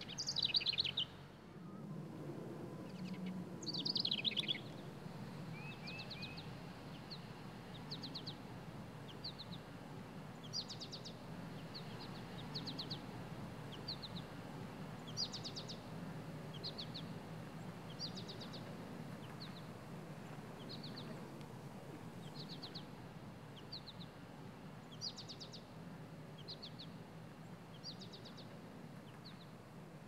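Small birds chirping: a short burst of rapid high notes repeated about once a second, with two louder falling chirps near the start, over a steady low outdoor background hum.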